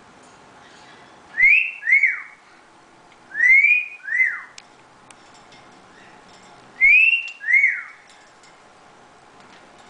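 Whistling: three two-note whistles, each a rising note followed by a falling one, about a second and a half in, around three and a half seconds in, and again about seven seconds in.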